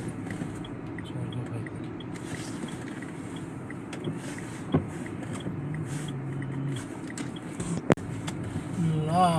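A car running, heard from inside as a steady low rumble of engine and road noise, with two sharp clicks partway through. A voice starts near the end.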